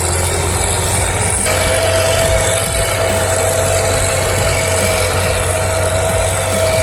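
Heavy machine's engine running steadily under load, with a deep low rumble; a steady whine joins in about a second and a half in.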